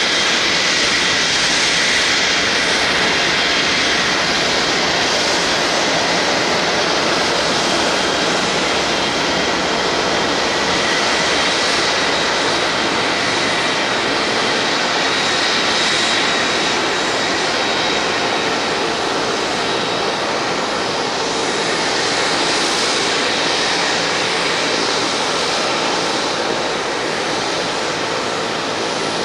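Cessna Citation Encore business jet's twin Pratt & Whitney Canada PW535A turbofans running at taxi power: a steady jet rush with a thin high whine on top, growing slightly fainter in the second half.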